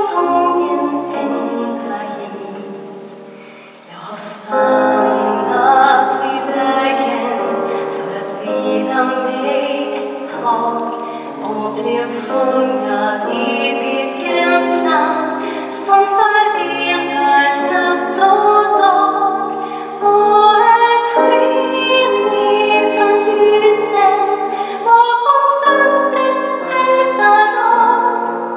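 A female solo voice sings in Swedish through a handheld microphone, with grand piano accompaniment, in a large reverberant church. The singing fades away at the end of a phrase about four seconds in, then comes back with the next phrase.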